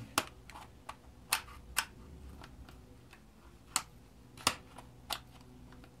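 Sharp plastic clicks and taps, unevenly spaced, as a long screwdriver pries at the clip of a fuel-injector connector on a BMW M52TU engine. The clips are old and have never been removed, so they are stiff and do not snap off easily.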